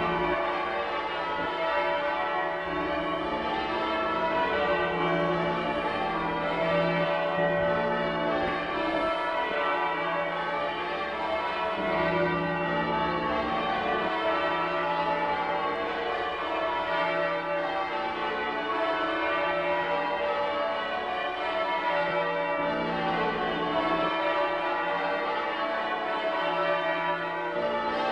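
A ring of church bells in a tower being rung in a peal by change ringing: the bells strike one after another in continuous rounds, their tones overlapping steadily.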